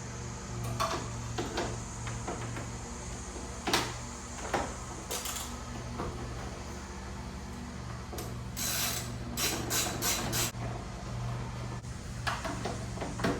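Irregular metal clicks and knocks from a 10 mm wrench undoing the bolts that hold an inverter, with a quicker run of clicks and rattles about two-thirds of the way through. A low steady hum sits underneath.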